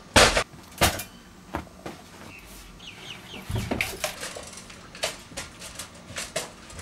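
Two hard blows in quick succession as a toaster is smashed, followed by scattered lighter knocks and clicks, with a brief squeaky wavering sound about three seconds in.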